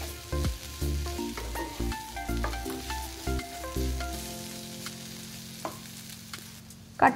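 Pieces of raw jackfruit and potato sizzling in oil in a frying pan while a wooden spatula turns them, scraping and tapping against the pan for the first few seconds, after which only the sizzle goes on. Soft background music plays underneath.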